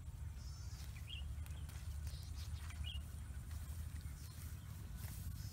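Open-field ambience: a steady low rumble, with a short rising chirp twice, a brief high rapid trill and a faint steady high whine over it.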